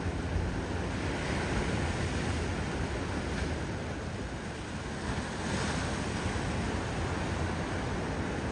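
Ocean surf washing and breaking, with wind rumbling on the microphone; the hiss swells briefly a little past the middle.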